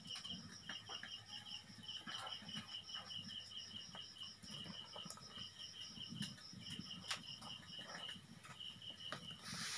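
Insect chirping steadily at about four chirps a second, faint, with a few soft clicks.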